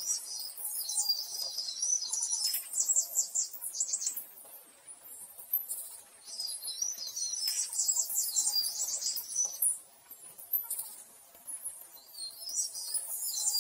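Birds chirping: high-pitched chirps, warbles and rapid trills in three bursts of a few seconds each.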